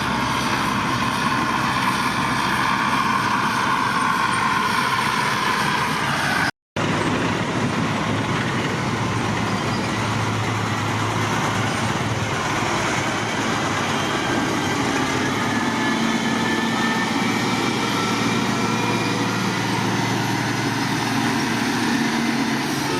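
Heavy diesel construction machinery running steadily, with the sound cut off for a moment about a third of the way in.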